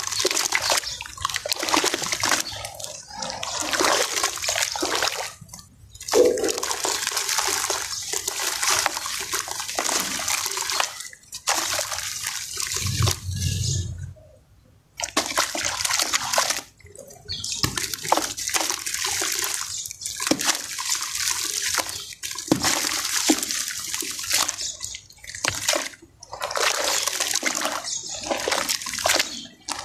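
Hands working in a plastic tub of water and dissolving dry sand-and-cement powder: splashing and sloshing in uneven bursts, with short pauses and a brief lull about halfway through.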